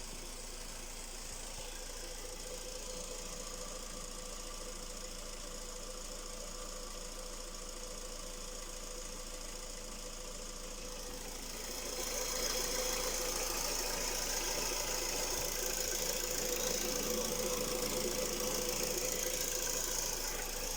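Skoda Rapid's 1.6 CFNA four-cylinder petrol engine running with a knock whose source is unknown. The sound grows louder and brighter about halfway through.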